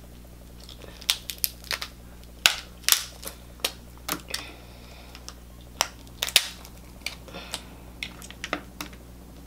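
Boiled shellfish shell cracking and snapping as it is pried apart by hand, a series of irregular sharp cracks and clicks; the shell is hard and resists breaking.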